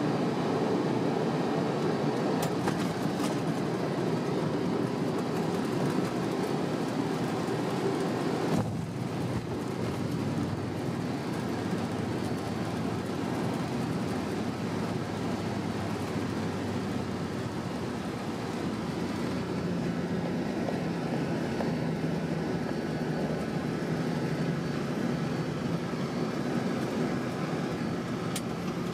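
Boeing 767 rolling out on the runway after touchdown, heard from the cockpit: a steady, loud rumble of engines and wheels on the runway. It dips briefly about nine seconds in and later settles into a lower hum as the aircraft slows.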